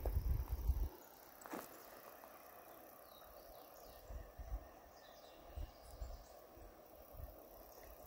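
Quiet outdoor ambience in scrubland: a steady faint insect hum with a few faint, short bird chirps. Low thumps on the microphone in the first second and a single click about a second and a half in.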